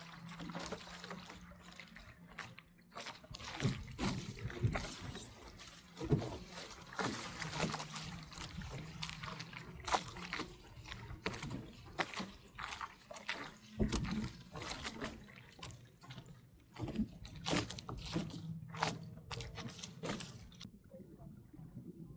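Small waves lapping and slapping against the hull of a Sunfish sailboat under way, with irregular splashes close to the stern. Near the end the sound turns duller.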